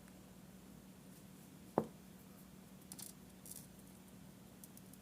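Hands working small craft materials at a work surface: a single dull knock about two seconds in, then a few brief, faint clicks and rustles, over a low steady hum.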